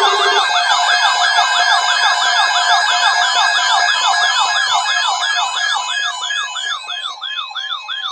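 Weather radio alert: a steady high tone (the 1050 Hz NOAA Weather Radio warning alarm tone) under an electronic warbling siren alert that sweeps up and down about three to four times a second, announcing a severe thunderstorm watch. It gets quieter over the last couple of seconds.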